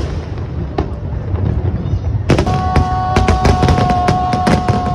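Aerial fireworks bursting. A few scattered bangs come first, then about two seconds in a rapid string of many bangs starts, with a steady high tone held over them.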